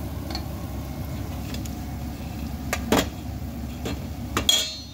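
Fritter batter deep-frying in hot oil under a steady low rumble. A metal spoon clinks against a stainless-steel mixing bowl about three seconds in and again near the end; the last clink is the loudest and rings briefly.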